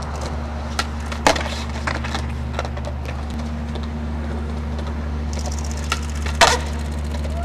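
Skateboard on a concrete ledge: sharp wooden clacks of the deck and tail, loudest a little over a second in and again about six and a half seconds in as the skater kickflips off the ledge, with a few lighter taps between. A steady low hum runs under them.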